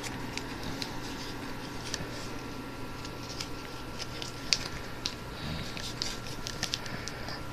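A sheet of paper being folded and creased by hand, with scattered soft crinkles and sharp little clicks, two of them louder about four and a half and five seconds in.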